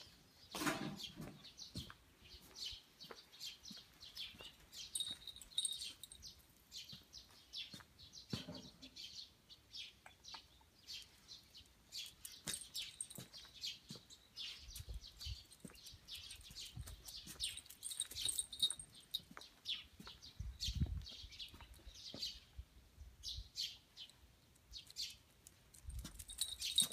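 Small birds chirping on and off, over a quiet run of footsteps and light scuffing, with a few soft low thumps.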